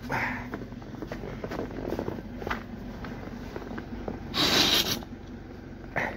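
Car engine idling, a low steady hum, under close rustling and handling noises, with a louder rustle lasting about half a second some four and a half seconds in.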